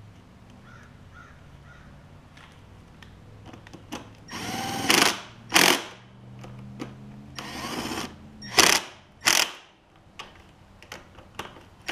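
Milwaukee cordless driver tightening the nuts on a lawn tractor carburetor's intake elbow, running in about five short bursts that start a little past a third of the way in, each spinning up and stopping.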